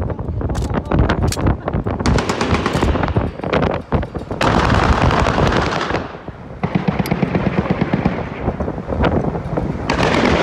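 Automatic gunfire in rapid, irregular bursts, with a short lull about six seconds in.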